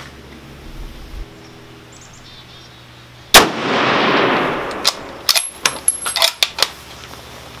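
One rifle shot from a 1943 Lee-Enfield No. 4 Mk I (T) sniper rifle in .303 British, about halfway through, with a long echo trailing off over a second and a half. It is followed by a quick run of metallic clicks and clacks as the bolt is worked.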